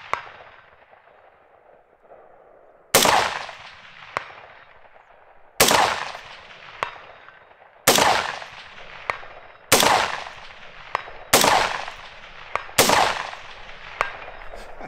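Six rifle shots from a scoped AR-style rifle, fired at an even pace roughly two seconds apart. Each is a sharp crack with a trailing echo, and a fainter crack follows about a second after each.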